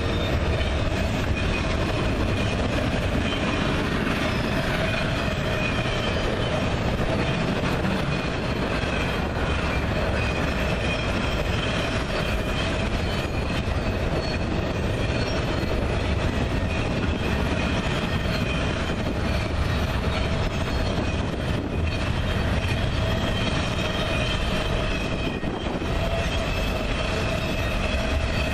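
Union Pacific double-stack container train rolling past steadily: a continuous rumble of steel wheels on rail, with a steady high wheel squeal over it.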